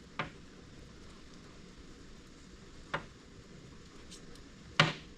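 Three short, sharp clicks or taps from handling the wiring harness and electrical tape, the loudest near the end, over faint steady room noise.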